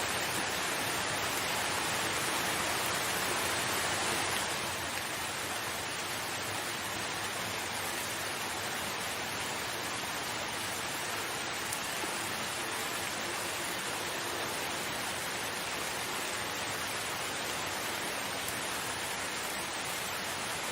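Steady rain falling, an even hiss with no separate drops standing out. It is slightly louder for the first four seconds or so, then eases a little and holds steady.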